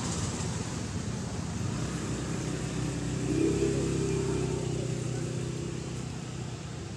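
A motor vehicle's engine passes nearby. The low hum swells about three seconds in and then fades away.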